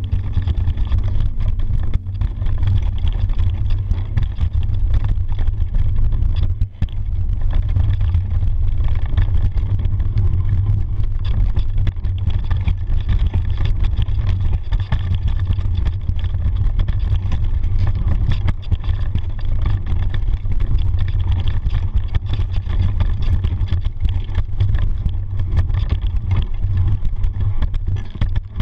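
Mountain bike riding down a dirt and rock trail: a steady, heavy low rumble of wind buffeting the action camera's microphone, mixed with tyre noise over the dirt and scattered small rattles and knocks from the bike.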